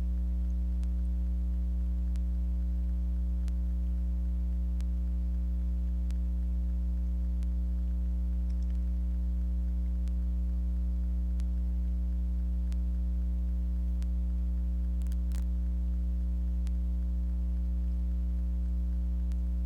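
Steady electrical mains hum, with faint ticks about every second and a half and a brief scrape of small handling noises about fifteen seconds in.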